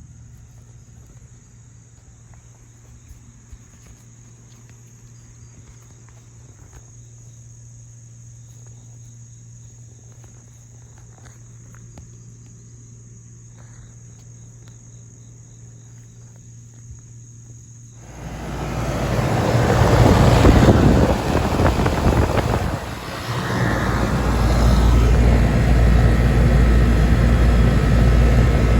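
A steady low hum and a steady high whine, then, about two-thirds of the way through, a sudden loud, steady whooshing run of a 1995 Janitrol 2.5-ton heat pump's outdoor unit: condenser fan and compressor heard up close.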